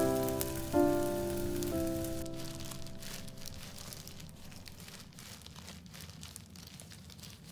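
Soft piano notes fading out over the first three seconds, over the faint crackle of battered zucchini slices frying in oil in a pan. The faint crackling goes on after the music fades.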